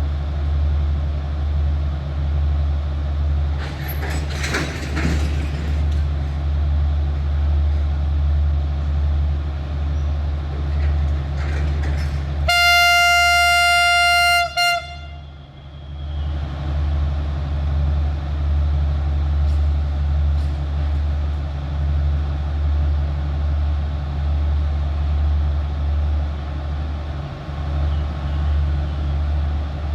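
Alsthom diesel-electric locomotive idling with a steady low rumble. A brief hiss comes about four seconds in. About twelve seconds in the horn sounds one loud blast of about two seconds, cut off sharply and followed by a very short toot.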